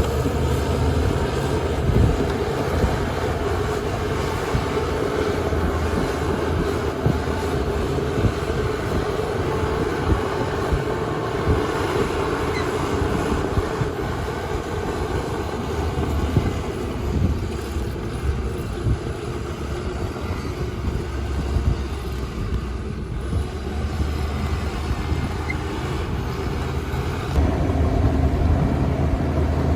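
Heavy diesel earthmoving machinery running steadily, with a few faint knocks. About 27 s in the engine note deepens and grows louder.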